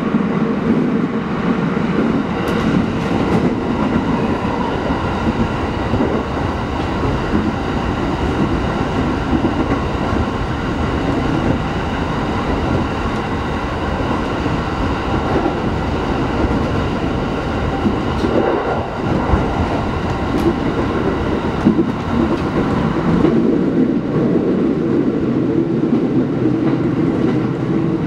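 A JR East Hachiko Line electric commuter train running at speed, heard from inside the carriage. There is a steady rumble of wheels on rail with a whine of steady tones over it, and a few sharp clicks over rail joints.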